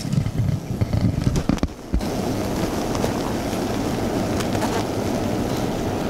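Microphone rubbing and knocking as it goes in among the hive's boxes. About two seconds in, the steady low hum of a honeybee winter cluster starts, picked up close by a sensitive microphone, and holds evenly. The hum shows the colony is alive and keeping itself warm.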